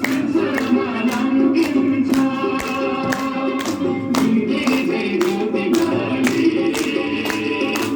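Song with singing over a steady beat of about two sharp strokes a second, music for a group dance.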